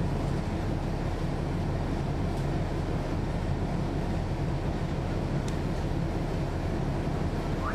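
The Cummins ISL9 diesel engine of a NABI 40-SFW transit bus, heard from inside the cabin, running at a steady speed as a low drone over general ride noise.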